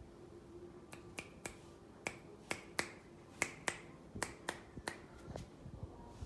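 A series of sharp, short clicks, about fifteen of them at an uneven two or three a second, starting about a second in and stopping shortly before the end.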